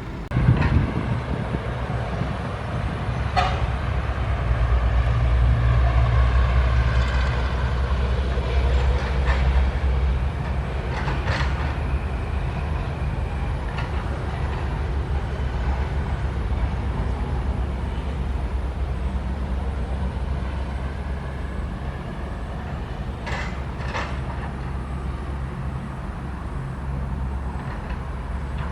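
SANY SY135F excavator's diesel engine running under load, louder in the first third as it works, with a rising and falling whine and several sharp metal clanks spread through.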